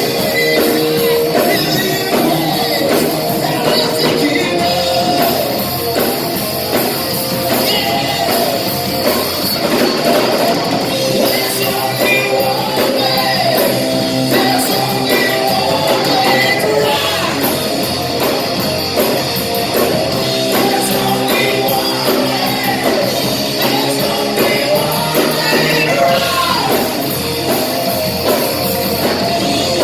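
Rock band playing a hard rock song, with electric guitar, drums and a singer.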